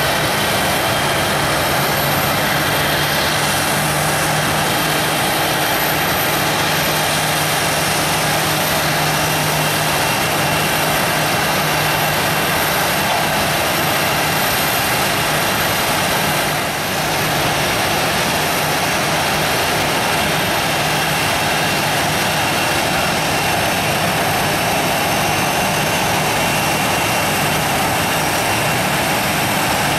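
Steady jet noise from a parked Airbus A319 airliner: a high whine over a constant rush, with a low hum that fades about halfway through.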